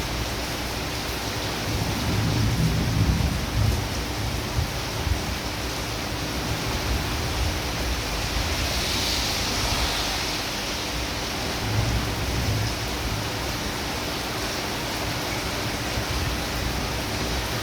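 Heavy rain falling steadily, with a low rumble swelling about two seconds in and again around twelve seconds in.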